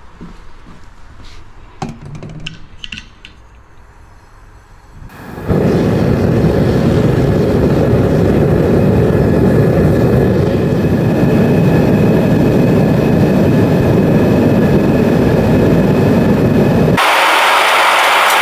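Melting furnace's burner running with a steady loud roar that starts suddenly about five seconds in, after a few light metal clinks. Near the end the roar changes abruptly to a brighter, hissier sound.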